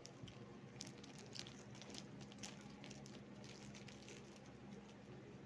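Faint crinkling and crackling of a plastic candy wrapper handled in the fingers, many small irregular crackles over a steady low hum.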